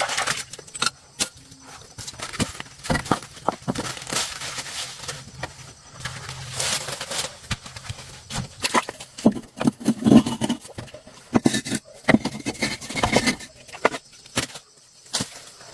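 Irregular knocks, clinks and scrapes of hand tools working on car wheel parts, with no steady rhythm.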